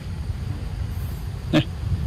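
One short, sharp call from a macaque about one and a half seconds in, over a steady low rumble.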